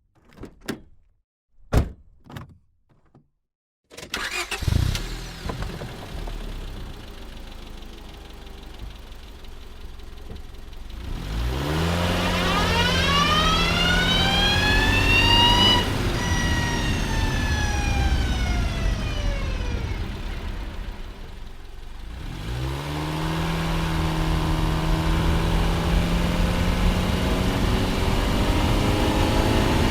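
2005 Honda Civic four-cylinder engine: a few separate knocks, then the engine starts about four seconds in and runs. Engine speed climbs, holds and falls back once, then dips and builds again steadily.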